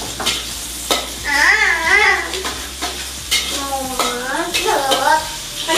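Sliced onion, garlic and ginger sizzling in hot oil in a wok while being stir-fried, with a metal spatula scraping and clicking against the wok now and then.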